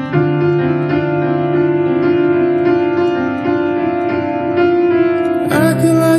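Background pop music: an instrumental passage of sustained chords over a steady pulse, growing fuller and brighter near the end.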